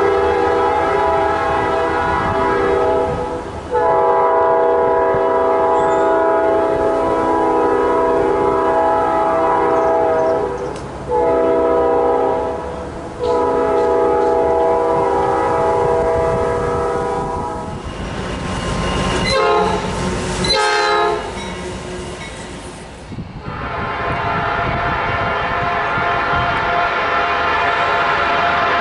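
Nathan Airchime P5 five-chime locomotive horn sounding the grade-crossing signal: long, long, short, long. A few seconds of rail noise follow, then another long horn blast starts near the end.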